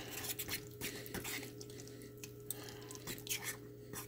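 A fork stirring thick cheese grits in a stainless steel saucepan: soft, irregular wet squelches with light clicks.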